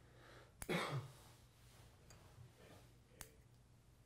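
Quiet handling sounds at a fly-tying vise as fingers work the fly's rubber legs: a sharp click about half a second in, then a brief louder rustle, and another click a little after three seconds.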